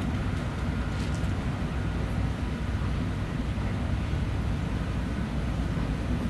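Inside the passenger cabin of an N700S Shinkansen: the steady low rumble of the train running along the line.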